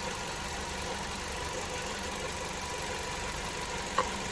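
2009 Hyundai Getz petrol engine idling steadily, with one short sharp click about four seconds in. The engine is being checked for an intermittent misfire with a test light run along the ignition leads.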